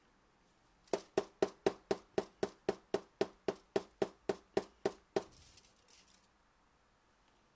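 Plastic bottle of paint shaken hard by hand, its contents knocking against the ends in a steady run of about seventeen sharp knocks, about four a second, ending a little after five seconds in with a few weaker ones.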